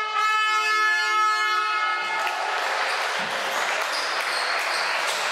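Gymnasium scoreboard horn sounding one long steady buzz that cuts off about two seconds in. It is followed by basketball court noise: a ball bouncing and the hubbub of the hall.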